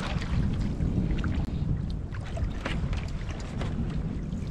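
Wind buffeting the microphone in a small open boat on choppy sea: a steady low rumble, with scattered faint clicks and ticks over it.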